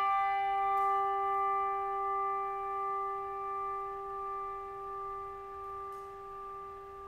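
A hand-held brass bell ringing on from a single stroke and slowly fading, its tone wavering in a slow pulse. It is tolled once for a church member who has died.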